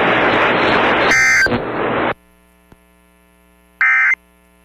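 Emergency Alert System end-of-message data bursts: short two-tone digital screeches, one about a second in over radio static and another near the end. The static cuts off about two seconds in, leaving a faint hum.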